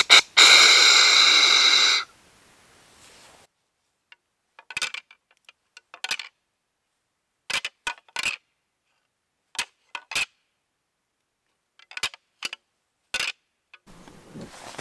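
A hand-held deer call blown once in a long, held note lasting about a second and a half. Then a pair of deer rattling antlers clashed and ground together in short clusters of sharp clacks and clicks, imitating two bucks sparring to draw a buck in.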